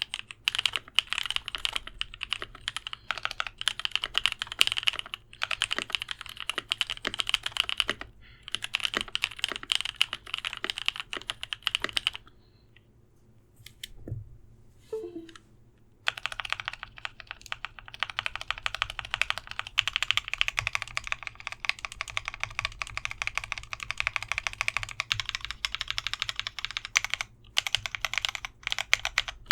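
Fast typing on an Idobao ID80 mechanical keyboard with lubed Novelkeys Cream linear switches and an acrylic back plate: a dense run of keystroke clacks. It pauses for about four seconds near the middle, with one soft knock in the gap, then the typing resumes.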